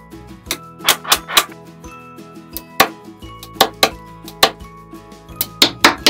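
Small magnetic building blocks clicking together as they are set into a build, about ten sharp clicks at uneven intervals, over background music with steady held notes.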